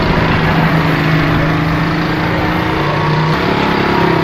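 Truck engine idling steadily, an even low hum that shifts slightly in pitch a little over three seconds in.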